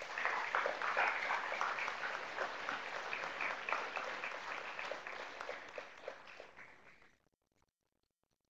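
Audience applauding, loudest about a second in and slowly tapering off, then stopping abruptly about seven seconds in.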